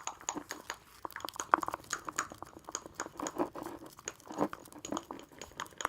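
Thick white craft glue being stirred in a bowl to mix in pink colouring: a rapid, irregular run of small clicks and sticky scraping.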